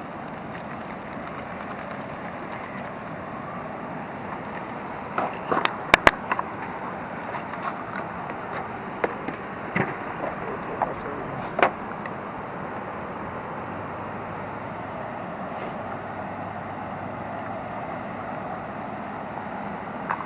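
Steady outdoor background noise, with a run of sharp clicks and knocks between about five and twelve seconds in.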